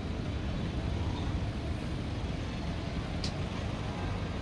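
Street traffic: a steady low rumble of vehicles idling and moving slowly in a congested street, with a brief high squeak a little after three seconds.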